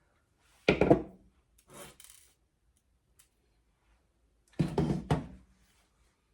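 Small metal eye hooks being twisted into pre-drilled holes in a wooden bird cage: three short bursts of creaking and rubbing, wood against metal, the last one the longest.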